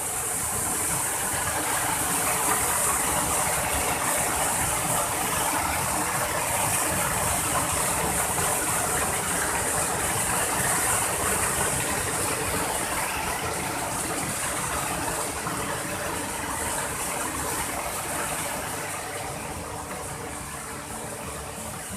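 Waterfall rushing steadily, a constant even hiss of falling water that eases slightly near the end.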